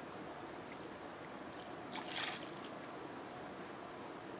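A cup of water poured into an iron kadai onto ground paste, with short splashes about two seconds in.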